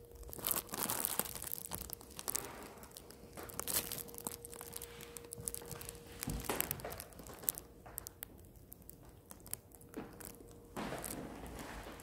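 Footsteps on a hardwood floor, mixed with crackling, rustling handling noise from a handheld phone being carried while it films. A faint steady hum runs underneath and stops about six and a half seconds in.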